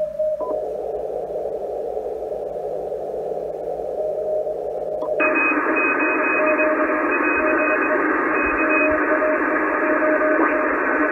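ICOM IC-746 shortwave transceiver receiving in CW mode: band hiss through its DSP audio peak filter, first a narrow band of noise around 600 Hz. Two short beeps from the front-panel keys come near the start, and the hiss widens a little. About five seconds in the audio peak filter is switched off and the hiss opens up to full width, with faint on-off Morse tones in it.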